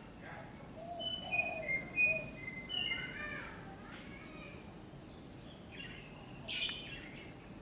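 A dove cooing in a low, soft phrase about a second in, while small birds chirp higher and louder. There is a run of short descending chirps in the first half and another burst near the end.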